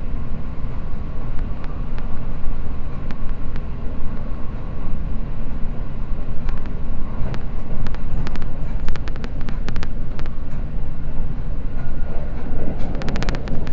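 Seibu Red Arrow limited express electric train running at speed, heard from inside the car: a steady low rumble with sharp clicks and clatter that start about halfway through and come thick and fast near the end.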